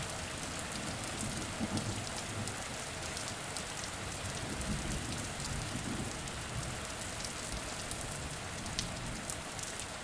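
Steady rain falling on wet cobblestones and into shallow puddles, individual drops ticking through a constant hiss.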